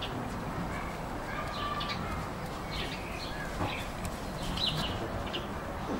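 Small birds chirping and singing in short, scattered calls over a steady hum of outdoor background noise.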